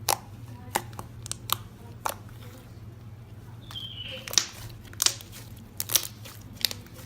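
Slime being squeezed and worked in the hands, making scattered sharp pops and clicks, about ten of them spread irregularly over several seconds.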